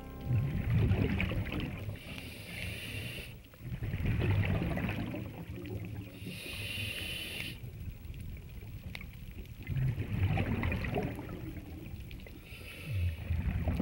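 Scuba diver breathing through a regulator underwater: a hissing inhale, then a low rush of exhaled bubbles, repeating about every four to five seconds.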